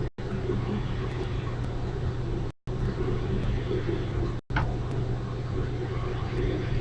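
Emergency Alert System test audio on cable TV: a steady buzzing hum and noise with no clear voice, broken by three brief, abrupt dropouts to silence. This is the garbled audio of the 2011 national EAS test.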